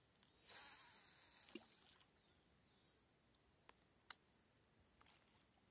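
Faint, steady high-pitched insect buzzing, with a short rush of noise about half a second in and a few sharp clicks, the sharpest about four seconds in.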